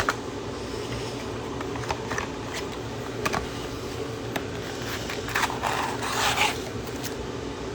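Light scraping and rustling of card-box packaging being handled, with a few small clicks and two longer scrapes near the end, over a steady low hum.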